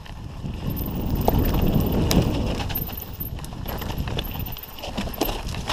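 Mountain bike running down a rough trail: a steady low rumble of tyres and wind, with loose rattling clicks and knocks from the bike over bumps.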